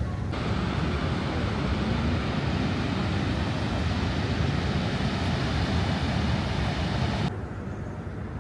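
Steady rushing noise of Niagara Falls' falling water, starting abruptly just after the start and cutting off sharply near the end.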